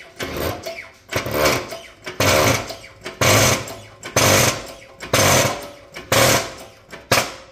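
Hydraulic workshop press worked in strokes, about one loud stroke a second, pressing a new bearing onto a gear from an xDrive transfer case.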